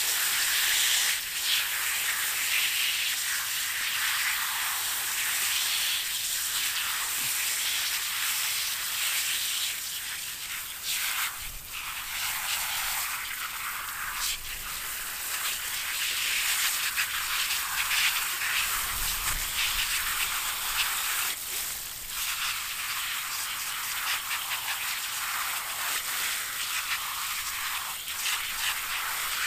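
Garden hose spray nozzle jetting water through a foam dirt bike air filter: a steady hiss of spray, rinsing the cleaner and dirt out of the foam.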